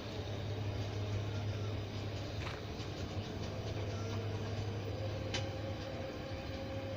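Rail track-maintenance machine's diesel engine running with a steady low hum, and a few faint clicks over it.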